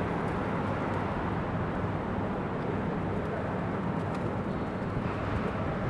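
Steady city street ambience: a continuous hum of distant traffic with no single event standing out.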